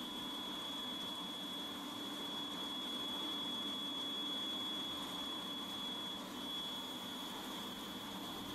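CNC milling machine cutting a 45° chamfer on a metal ring under coolant spray: a steady high whine over an even hiss of spraying coolant and running machinery.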